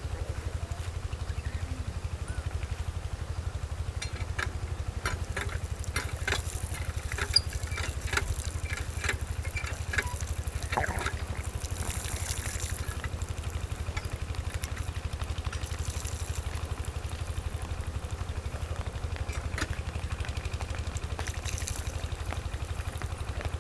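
Steady low engine rumble with a fine, even pulse, like an engine idling, unchanged throughout. Scattered clicks and short chirps come between about four and eleven seconds in.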